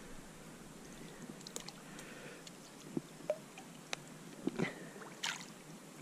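Faint splashing and dripping of water as a landing net is worked in the shallows to scoop up a fish, with a few sharper splashes from about three seconds in.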